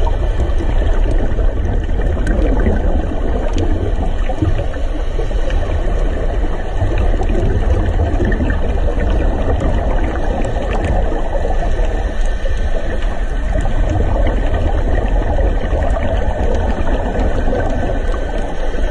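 Underwater ambience heard through a camera's housing: a steady, muffled water rush with scattered faint clicks.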